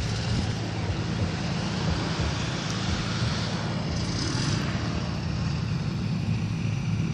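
Cessna 404 Titan's twin piston engines running steadily at a distance, a low drone without a clear rise in pitch.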